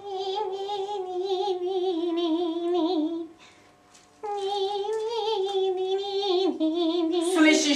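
A woman singing two long, held phrases with vibrato, with a short pause between them, and a brief rustling clatter at the very end.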